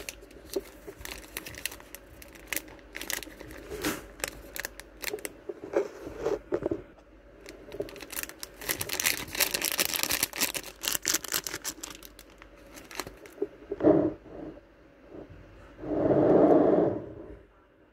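Clear plastic zip bags crinkling and rustling as they are handled, with scattered sharp clicks and a denser stretch of crinkling midway. Near the end a short thud, then a louder muffled rush lasting about a second.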